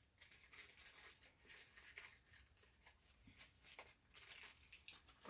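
Faint rustling and crinkling of a small plastic bag and card packaging being handled, with a few soft ticks, barely above near silence.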